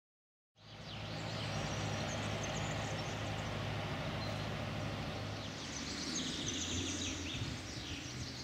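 Outdoor ambience that cuts in just under a second in: a steady low hum with a wash of noise, and birds chirping high above it from about six seconds in.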